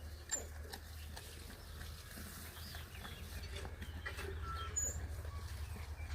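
Farmyard ambience: a steady low rumble with scattered rustles and clicks, and brief high bird chirps.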